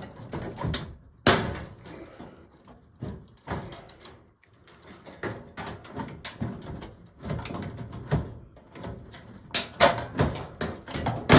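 Irregular knocks, clicks and rattles of hands working on an old fluorescent light fixture while trying to free its wiring plug. There is a loud knock about a second in and a cluster of sharper clacks near the end.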